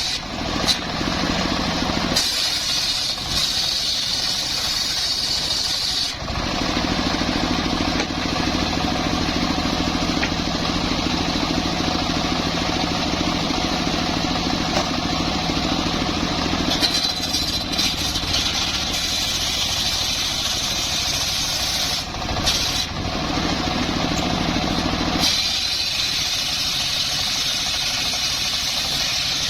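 Chainsaw engine running hard and steadily. About six seconds in its sound turns lower and fuller, and about twenty-five seconds in it goes back to a higher, thinner tone.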